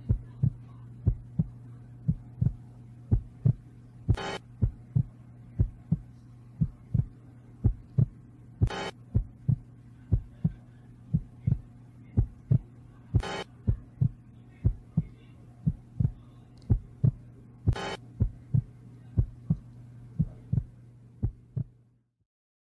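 Steady low hum with a soft, heartbeat-like thump about two times a second and a short hiss every four to five seconds; it all cuts off suddenly near the end.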